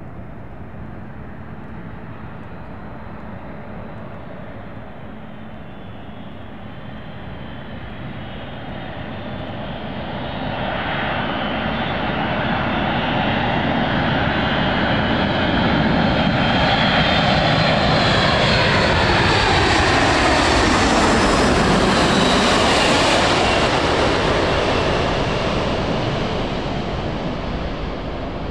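A C-17A Globemaster III's four Pratt & Whitney F117 turbofan engines on landing approach, flying low overhead. The jet noise builds over the first ten seconds or so, is loudest for several seconds as the aircraft passes, with the engine whine falling in pitch, then begins to fade near the end.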